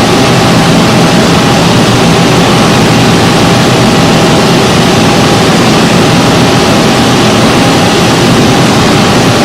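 Tongtai VTX-5 CNC milling and tapping center running, a loud steady machine noise with a faint constant whine through it.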